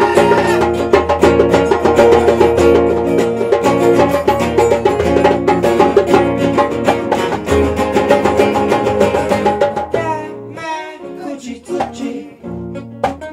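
Live band music led by guitar, dense and loud, thinning out about ten seconds in to a sparser passage of wavering pitched notes.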